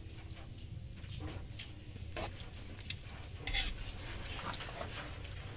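A utensil stirring and tossing pancit noodles in a pan: scattered scrapes and clicks on the pan, the loudest about three and a half seconds in, over a low steady hum.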